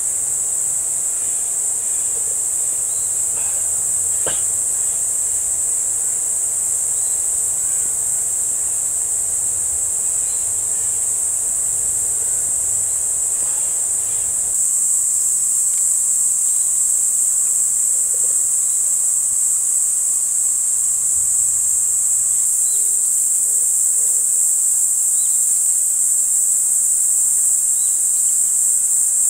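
Steady, high-pitched chirring chorus of insects in summer woodland, growing a little louder about halfway through.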